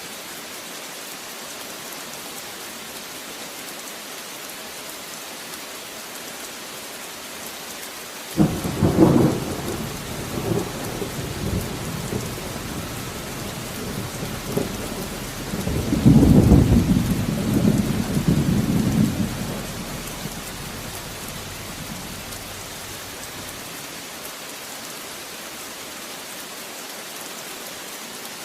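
Steady heavy rain, broken about a third of the way in by a sudden thunderclap that rumbles on, then a second, louder peal of thunder about halfway through that rolls away over several seconds.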